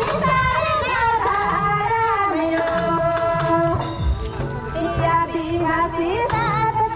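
A song sung over a steady, regular percussion beat.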